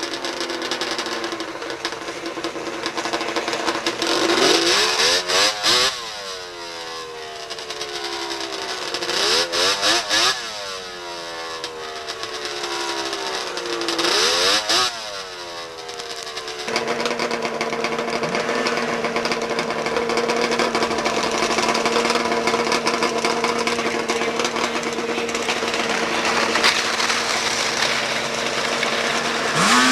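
Two-stroke racing snowmobile engines revving hard three times, each run a quick sweep in pitch. Partway through the sound changes suddenly to engines running steadily at an even pitch.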